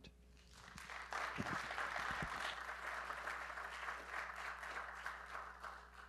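Audience applauding, swelling in during the first second, holding steady, then dying away near the end.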